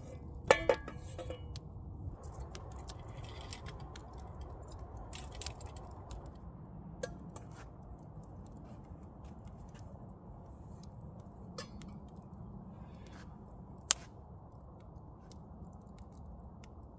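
Cookware and utensils being handled: a ringing metal clink about half a second in, then scattered small clicks and taps, with a sharp tick near the end, over a low steady background hum.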